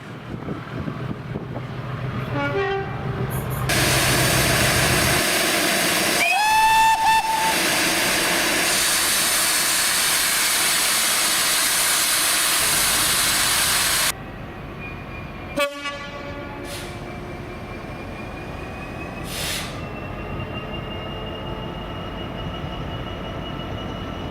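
A train passing close at speed, a loud rush of wheel and air noise, with one short horn blast about six seconds in. After an abrupt cut, a train moves with a whine that rises slowly in pitch.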